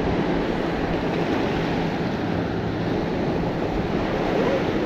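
Steady wind noise on the microphone mixed with waves washing against the jetty rocks.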